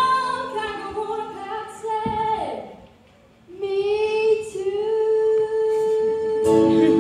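Singing voice carrying a melody of held notes, which slides down and stops about two and a half seconds in. After a short pause it comes back on one long held note, and a second sustained note joins near the end.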